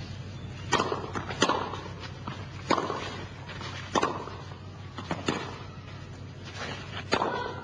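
Tennis balls struck back and forth with rackets in a rally: a series of sharp hits, irregularly spaced about a second apart, over a steady low hum.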